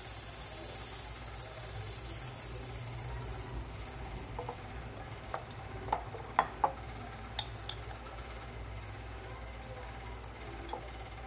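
A metal spoon clinks against the batter bowl and cup as pancake batter is stirred and scooped: a quick run of light clicks through the middle. Under it, a faint sizzle of melted margarine in the wok dies away within the first few seconds.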